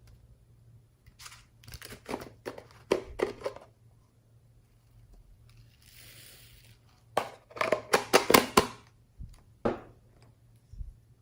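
Slime being squeezed and worked by hand, giving quick runs of sticky crackling pops in two bursts, with a brief soft hiss between them.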